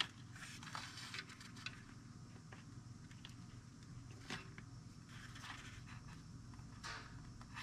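Faint rustling, scraping and small clicks of LS engine wiring-harness wires being handled and sorted, over a low steady hum.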